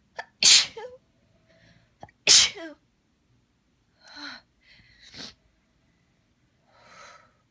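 A person sneezing twice, loud and sudden, about two seconds apart, each sneeze right after a quick sharp intake of breath. Quieter breaths follow. This is the allergy sneezing fit breaking through after a long holdback.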